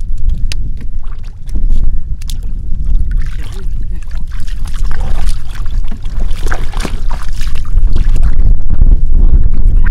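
Wind rumbling on the microphone, with irregular splashing and sloshing of shallow muddy water, busiest in the middle.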